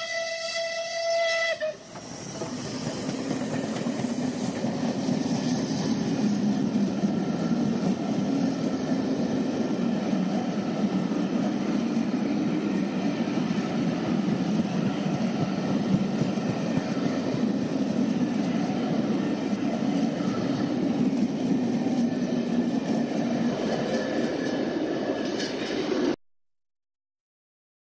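A steam locomotive whistle sounds for about the first two seconds. Then the LNER A1 Pacific No. 60163 Tornado, a three-cylinder express steam locomotive, works steam as it pulls its train out, a steady, loud run of exhaust and rail noise. The sound cuts off suddenly near the end.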